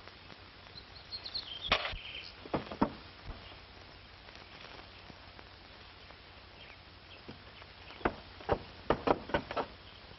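Irregular sharp knocks in two clusters, a few about two seconds in and a quicker run of them near the end, over the steady hiss and hum of an old film soundtrack.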